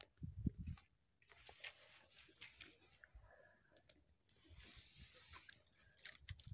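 Faint crackling of a small fire of dry twigs and grass: scattered sharp snaps over a light hiss, with a few dull low thumps in the first second.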